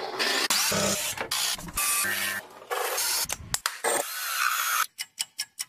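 Quick succession of power tools cutting wood, a table saw and a CNC router among them, each sound lasting under a second. It ends in a rapid run of sharp clicks, about six a second.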